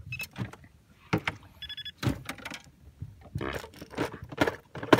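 Irregular clicks and knocks of a fishing reel and gear being handled, with a short electronic beep about two seconds in.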